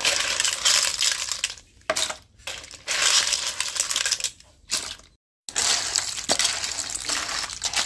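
Small freshwater snails clattering and grating against each other and against a metal spoon in a plastic basin of water. It comes as several spells of dense clicking with short pauses between them.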